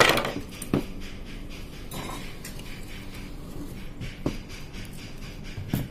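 Hands taking apart an industrial sewing machine's control box: the sharpest click and scrape comes at the very start, with single clicks and knocks about a second in and twice near the end, and a rustle at about two seconds, as the stacked circuit boards are gripped and pulled apart. A faint steady low hum lies underneath.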